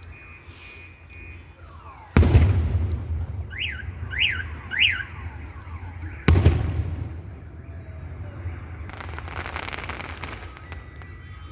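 Fireworks salute: two loud booms about four seconds apart, each rolling away, and a spell of crackling a few seconds after the second. Between the booms a car alarm gives three quick rising-and-falling whoops.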